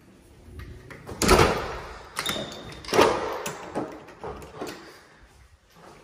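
Two loud knocks about two seconds apart, each ringing out in a bare, echoing room, with several lighter clicks and taps between and after them.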